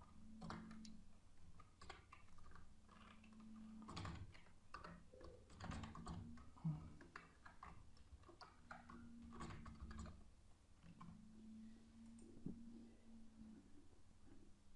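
Faint computer keyboard typing: irregular, scattered keystrokes over a faint low hum.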